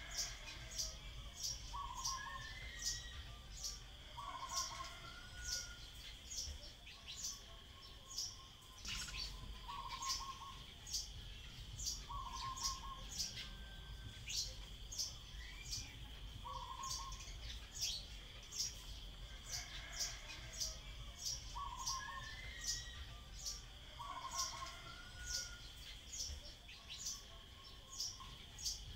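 Common tailorbird calling: a sharp, high note repeated about twice a second without pause. Other birds' shorter, lower notes come in every second or two over a steady high hum.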